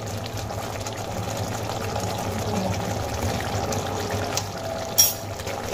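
Potato wedges and onion paste sizzling and bubbling in hot oil in a kadai, a steady frying sound, with one sharp tap about five seconds in.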